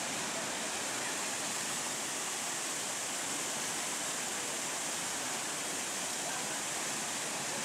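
Water pouring over a low stone weir and rushing between boulders in a stream: a steady, even rush.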